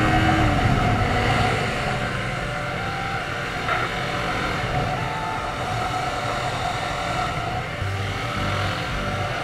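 Sport motorcycle engine heard onboard, with wind rush: the revs fall away in the first second as the throttle is rolled off, then it runs steadily at part throttle, somewhat quieter, through the corners.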